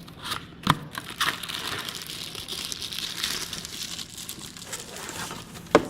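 Packaging of a window bird feeder being opened and handled: a steady crinkling rustle with a few sharp knocks, the loudest just before the end.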